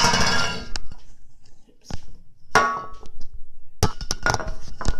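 Handling noise: a loud clatter with a brief ring in the first second, another shorter clatter about two and a half seconds in, then scattered knocks and clicks near the end, as the camera and small objects around it are moved about.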